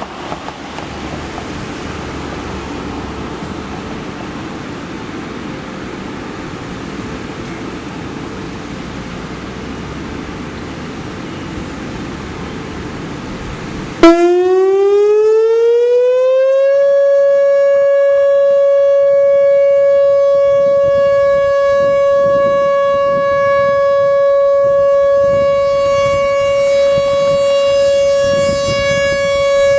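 A steady rushing background noise, then about halfway through a Whelen Vortex R4 electronic outdoor warning siren starts suddenly with a click. Its tone rises for a couple of seconds and then holds one loud steady pitch: the Alert signal of a monthly siren test.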